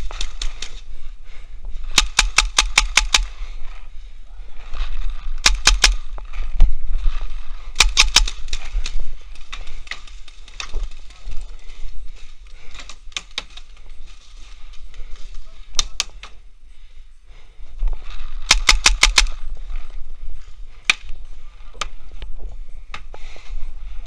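Paintball markers firing: several rapid strings of sharp pops at about six shots a second, with scattered single shots between them, over a low steady rumble.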